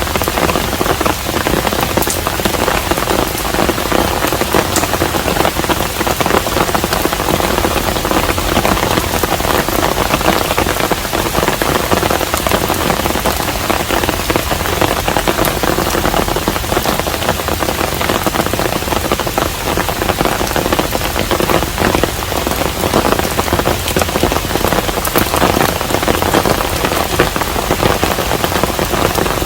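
Steady rain falling on a Korean hanok: a dense, even patter with a few sharper drops standing out now and then.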